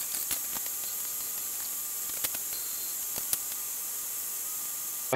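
Steady high hiss with a faint constant whine under it and a few light clicks: workshop room tone.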